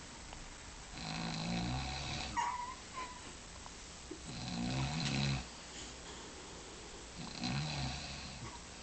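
A woman snoring in her sleep: three snores about three seconds apart, with a brief high squeak just after the first one.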